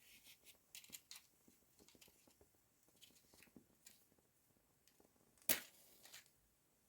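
Matchbox and matches handled with small clicks and rustles, then a match struck against the box about five and a half seconds in, a short sharp scrape and flare, with a smaller scratch just after.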